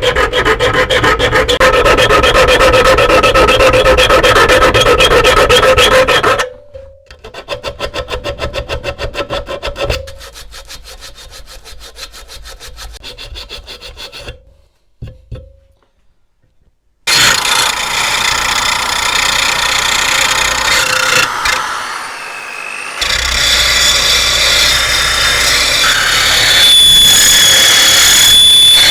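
Hand tool worked in rapid, even back-and-forth strokes across metal, loud for about six seconds, then quieter strokes, a short pause, and a steady machine sound with a thin high whine near the end.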